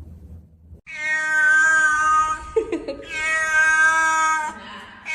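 Domestic cat yowling: long, loud wails held at a steady pitch. There are two of about one and a half seconds each, starting about a second in, with a short break between them, and a third begins at the very end.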